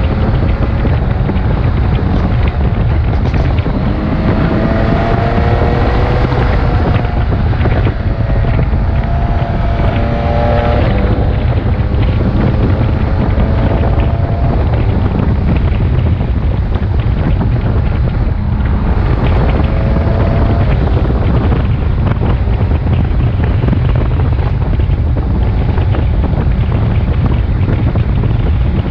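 BMW K1600GTL motorcycle's inline-six engine running at road speed, its note climbing in pitch several times as it pulls, under heavy wind noise on the microphone.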